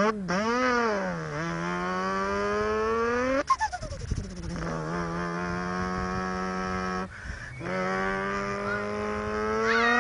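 A man imitating a turbocharged car engine revving through the gears with his mouth: the engine note climbs steadily in pitch, drops with a hiss about three and a half seconds in as at a gear change, climbs again, breaks off briefly around seven seconds, and climbs once more.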